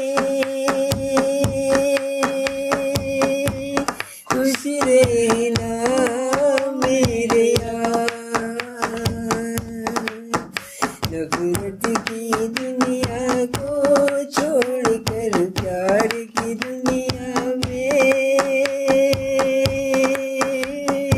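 A man singing, holding long notes at the start and again near the end, while hands beat a quick rhythm on a tabletop.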